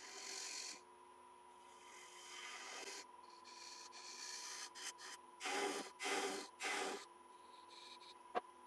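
Turning tool scraping and cutting a wet cherry goblet stem spinning on a wood lathe. It makes a series of scraping strokes, three louder ones close together past the middle, then one sharp click near the end.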